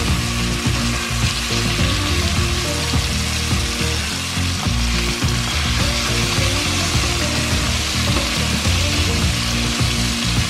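Chicken pieces sizzling steadily as they sear in a hot pot, being turned over with tongs.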